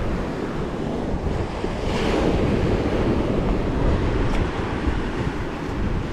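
Surf washing onto the beach with wind buffeting the microphone, rumbling in the low end. The wash grows a little louder about two seconds in.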